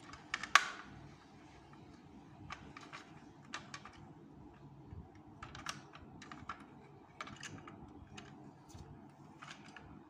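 Kenner M.A.S.K. Jackhammer plastic toy vehicle being handled and turned over in the hands: scattered light clicks and taps of hard plastic parts, the loudest cluster about half a second in.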